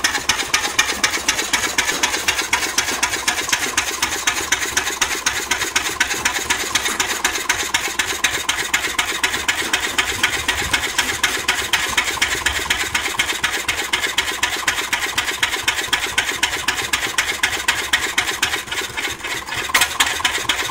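COLO two-cylinder diesel stationary engine running steadily, with a fast, even mechanical clatter.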